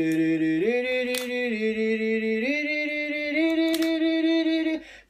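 A voice singing long held notes that step up in pitch over about four notes, cutting off shortly before the end. Two brief snaps, about a second in and near four seconds, come from rubber bands being stretched around a pineapple.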